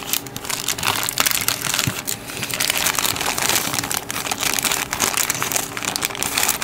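Thin plastic parts bag crinkling and crackling continuously as it is handled and pulled at to get it open.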